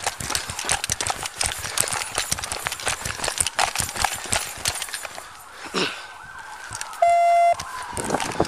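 Running footsteps and gear jostling against a body-worn police camera, slowing to a halt after about five seconds. Then a siren wails in the distance, and a short loud electronic beep sounds about seven seconds in.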